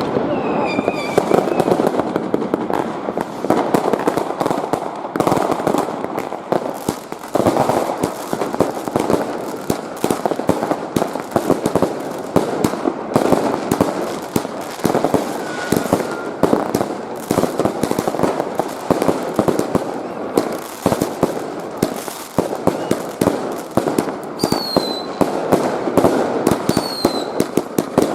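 Dense New Year's Eve fireworks barrage: countless firecrackers and shells bursting at once in a continuous mass of bangs and crackle. A few short falling whistles cut through, twice near the end.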